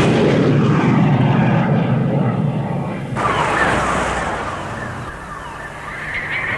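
Sound effects of a tank battle: the rumble of a cannon blast dying away, a second rush of blast noise about three seconds in, and a rising whine building near the end.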